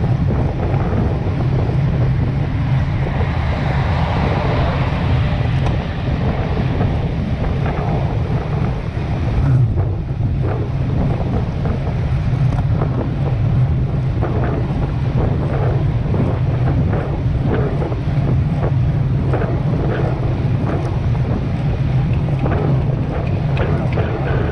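Wind buffeting the microphone of a handlebar-mounted camera on a road bicycle moving at about 38 km/h: a steady, loud low rumble.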